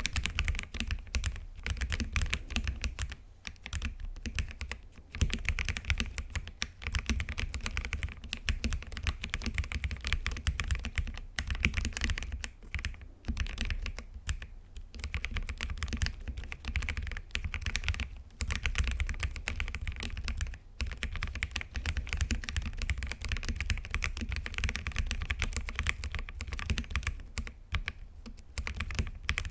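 ABKO AG75 mechanical keyboard with red linear switches being typed on continuously: rapid, dense key clacks with a few brief pauses.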